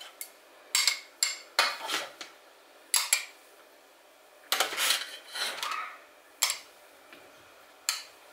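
A utensil scraping and clinking against the inside of a stainless steel cooking bowl as cooked rice is scooped out: a string of short metallic knocks and scrapes, with a longer scrape about halfway through.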